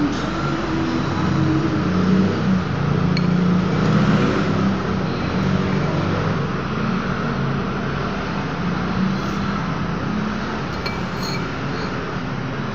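Steady low rumble of background noise throughout, with a few light clinks of a metal fork and spoon against the bowl, about three seconds in and again near the end.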